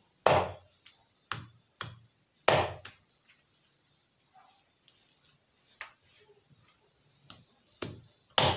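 A large knife chopping raw chicken on a wooden stump chopping block: sharp, irregular chops, the heaviest just after the start, about two and a half seconds in and at the end, with lighter taps in between.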